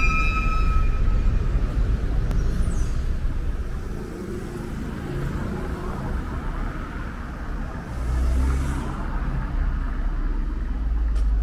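Street traffic with a steady low rumble. A motorcycle and cars pass, louder in the first couple of seconds and again around eight seconds in. A couple of sharp ticks come near the end.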